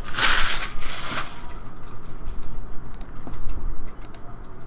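Plastic shrink-wrap on a card hobby box crinkling loudly for about a second as the box is handled, then a few light clicks and taps.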